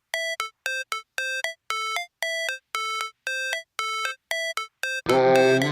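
Music: a synth melody of short, evenly spaced notes, about two or three a second. A fuller backing with bass comes in near the end.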